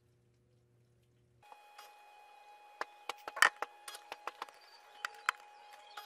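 Whirlpool Xpert System Smart Load top-load washing machine filling with water: a faint low hum at first. About a second and a half in, the audio becomes a sped-up recording of the washer, with a thin, high, steady whine and a scatter of sharp clicks and splashes.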